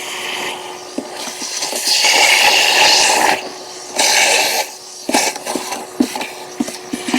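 Bursts of rushing air, one about a second and a half long and then a shorter one, as grass clippings and debris are cleared out of an electric mower's motor housing. A faint steady hum and small knocks and clicks run underneath.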